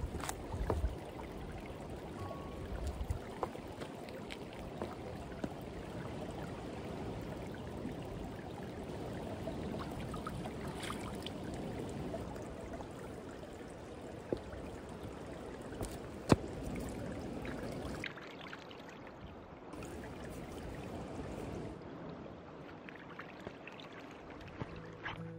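Shallow creek water trickling and running over rocks into a pool, a steady hiss, with a few sharp clicks and knocks, the loudest about sixteen seconds in.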